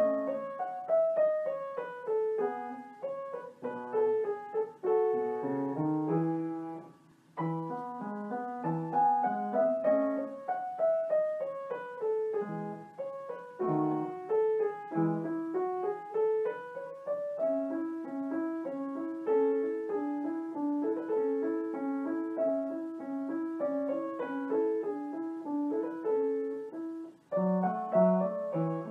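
Background piano music: a solo piano playing a flowing melody of quick running notes, with two brief pauses between phrases.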